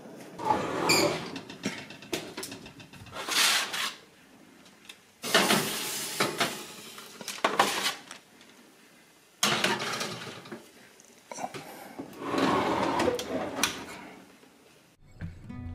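Kitchen handling noises: pans and utensils clattering in about six separate bursts of a second or so, with quiet gaps between. Acoustic guitar music comes in near the end.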